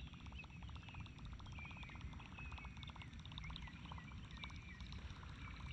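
Frogs calling faintly: a fast run of clicking calls that thins out about halfway through, with short high chirps over them.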